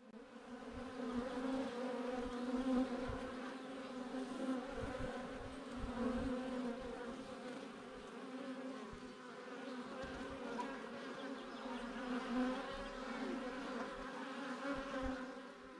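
Honeybees buzzing in numbers around an opened hive: a steady droning hum that swells and eases slightly.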